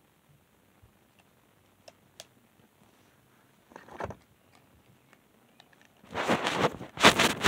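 Faint clicks and brief rustles of small plastic toys being handled. From about six seconds in, loud rubbing and rustling on the phone's microphone as the phone is moved.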